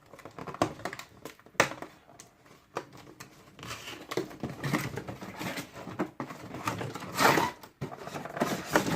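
Cardboard box and plastic packaging handled and pulled open by hand: scattered clicks and knocks with crinkling and rustling, loudest about seven seconds in.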